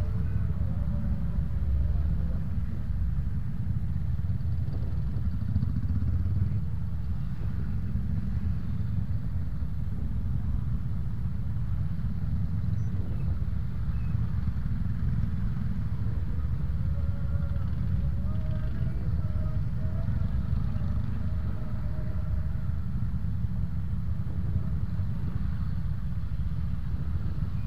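Low, steady engine noise of motorbikes inching through a traffic jam: the rider's Honda Scoopy 110 single-cylinder four-stroke scooter and the scooters packed around it.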